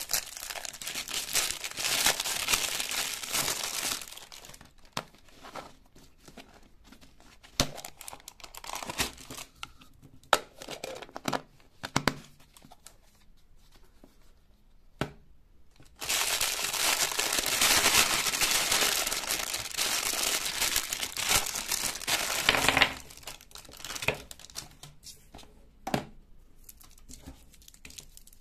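Thin plastic candy wrapping crinkling and tearing as hands pull it off, loud for the first few seconds and again for about seven seconds from halfway through, with scattered sharp clicks and taps in the quieter stretches between.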